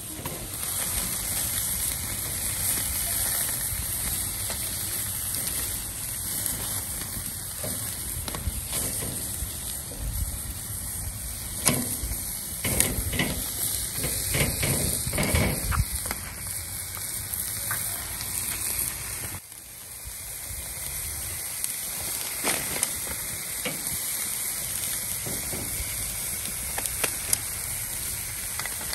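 Skirt steak sizzling steadily as it cooks, with a few sharp clicks in the middle and a brief dip about two-thirds of the way through.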